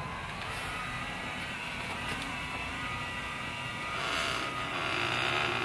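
Permobil F3 power wheelchair's electric seat actuators running as the seat moves back from forward tilt to its normal position, a steady motor whine. It grows a little louder about four seconds in, with squeaking from the seat mechanism, which the owner puts down to dust or dirt getting into it.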